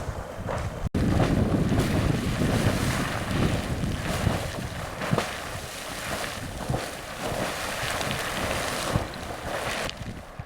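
Sawmill Geyser, a fountain-type geyser, erupting: overlapping splashing bursts of water hissing and spattering, with wind rumbling on the microphone.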